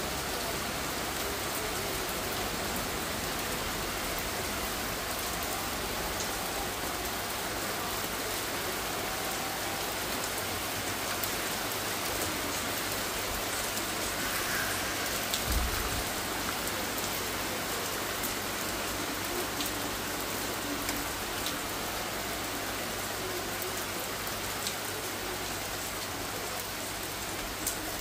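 Steady rain falling and pattering on surfaces, with scattered individual drop ticks and a single low thump about halfway through.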